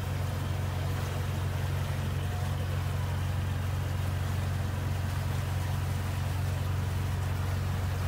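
Boat engine running steadily under way: a constant low drone with an even hiss over it.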